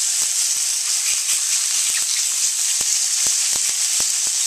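Chicken stir-frying in oil in a very hot wok, a loud steady sizzle with frequent small crackles throughout.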